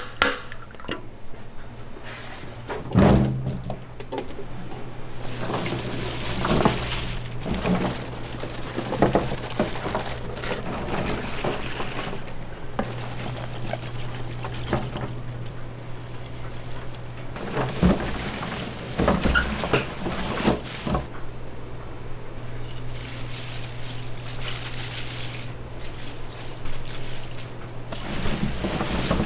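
Liquid pouring and splashing amid scattered knocks and clatters of food-prep work, over a steady low machine hum.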